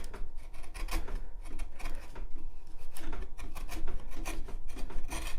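A wood chisel paring pallet wood, pushed flat along the cut like a plane, making repeated short scraping strokes as thin shavings come off.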